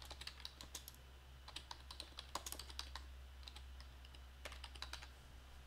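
Quiet computer-keyboard typing: short runs of keystrokes with brief pauses between them, as a name is typed into a text field.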